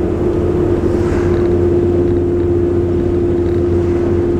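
A 22-foot Lazy Daze motorhome cruising on the road, heard from inside the cab: steady engine drone and tyre noise. An oncoming vehicle swishes past about a second in.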